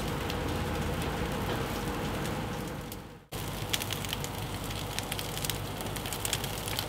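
Gas grill burners hissing under sausages that sizzle and crackle on the grates. The sound cuts out for a moment a little over three seconds in, then returns with sharper, more frequent crackles.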